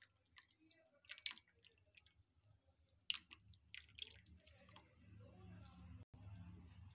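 Faint drips and light clicks of masala tea being strained through a tea strainer into a cup, with a low hum coming up in the second half.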